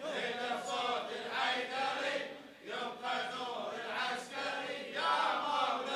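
Crowd of male mourners chanting a latmiya refrain together in unison, fainter than the lead reciter's voice.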